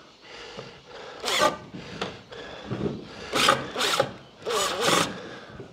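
Cordless drill driving a screw into timber in short bursts, the motor speeding up and slowing with each squeeze of the trigger: one burst about a second in, then four quick bursts near the end.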